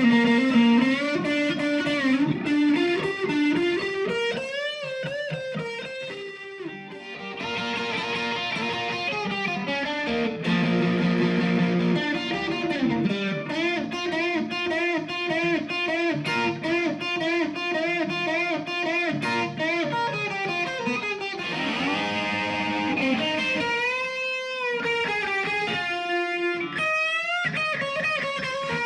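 Squier Classic Vibe '50s Stratocaster electric guitar played through an amp: melodic single-note lines and held notes, with string bends and vibrato that make the pitch waver and slide.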